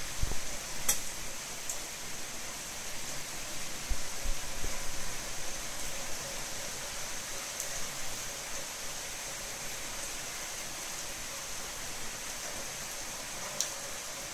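Heavy thunderstorm rain pouring steadily, an even hiss, with brief low rumbles near the start and again about four seconds in, and a sharp tick about a second in and another near the end.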